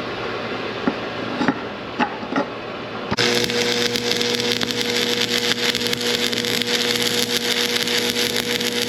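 Electric arc welder welding a new pipe section onto a split chopper shaft. A few clicks come first, then about three seconds in a steady, dense arc crackle starts over a constant electrical hum.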